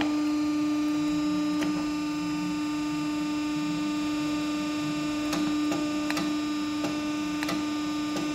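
A hydraulic hose crimping machine's power unit running with a steady, even hum, with a few faint clicks from its controls or parts being handled.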